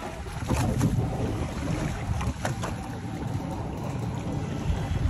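Wind buffeting the microphone on a small boat at sea, a gusting rumble with a few short sharp knocks, two in the first second and two about halfway through.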